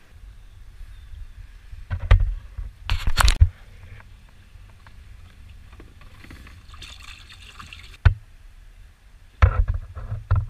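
Water sloshing and trickling inside the flooded hull of a leaking kayak as its hatch is opened. Loud knocks and thumps from handling the hatch come about 2 and 3 seconds in and again near the end.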